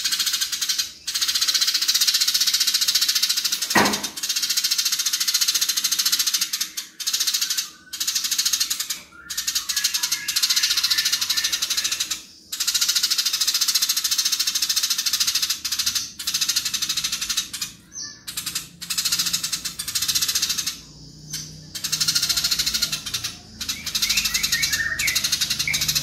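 Eurasian tree sparrow giving its agitated fighting chatter: long, fast runs of harsh, tightly packed high notes with short breaks, and one sharp click about four seconds in.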